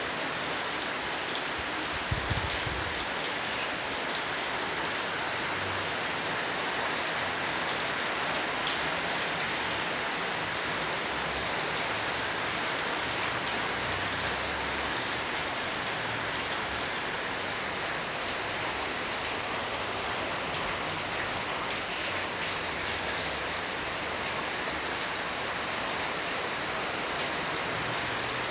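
A steady, even hiss with no pattern, and one short low thump about two seconds in.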